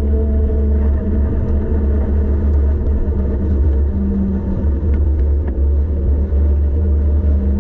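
Wind rumbling over the microphone of a bicycle-mounted camera during a fast downhill ride, with a steady hum from the bike underneath and a couple of faint clicks about five seconds in.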